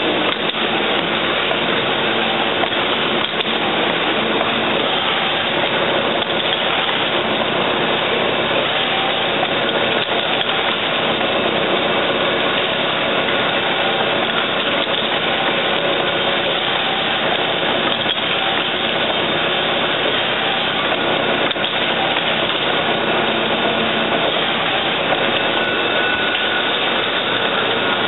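Steady mechanical running noise of hypodermic needle assembly line machinery, an even hum with a few faint steady tones and no pauses.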